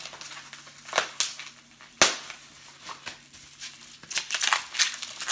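Packaging being handled: a few sharp crackles, the loudest about two seconds in, then a quick run of crinkling near the end. A faint steady low hum lies underneath.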